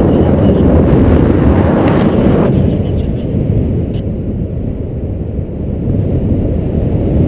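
Airflow buffeting a GoPro's microphone in paragliding flight: a loud, low rumble that eases after about two and a half seconds and builds again near the end.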